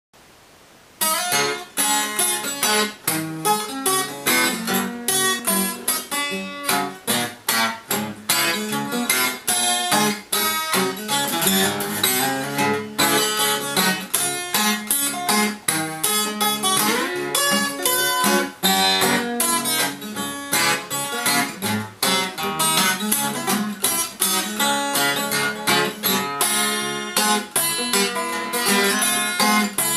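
Holzapfel & Beitel 12-string acoustic guitar, made around 1905, fingerpicked in an acoustic blues. It starts about a second in, with quick runs of plucked notes over a steady beat in the bass.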